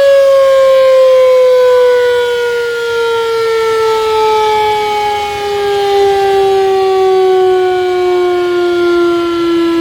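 The century-old horn-type 'gaok' siren of Plengkung Gading, sounding the signal to break the fast. Its single loud howling tone slides slowly and steadily down in pitch as the siren winds down.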